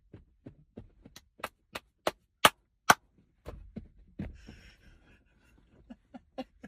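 A run of sharp taps or knocks, about three a second, getting louder over the first three seconds, then a few fainter ones near the end.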